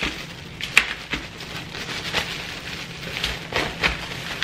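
Reynolds plastic oven bag crinkling and rustling in irregular crackles as it is gathered up and twisted shut.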